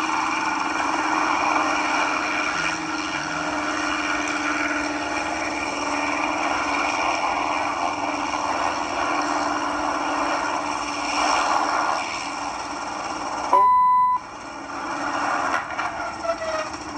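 Hughes 269 light helicopter's piston engine and rotors running with a steady drone as it hovers low and settles toward the water. About three-quarters of the way through, a short, loud single-pitched beep cuts over everything, and the drone comes back fainter and more uneven.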